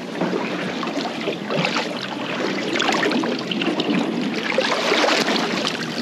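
Water splashing and sloshing at the side of a boat as a caught Samson fish is pulled backwards and forwards in the water to run water through its gills and revive it.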